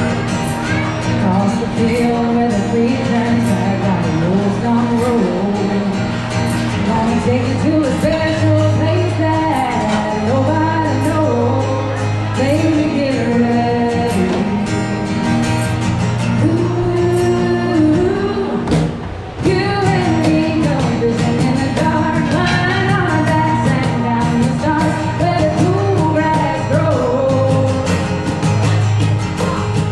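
Live country song: singing over acoustic guitar.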